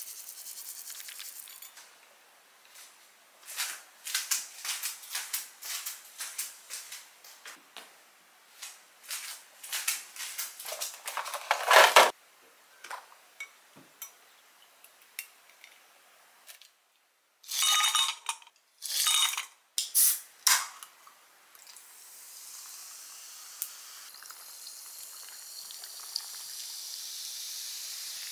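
Kitchen work: many short clinks and scrapes of utensils against dishes, a sharp clatter about twelve seconds in, a few louder bursts, then a steady hiss in the last few seconds.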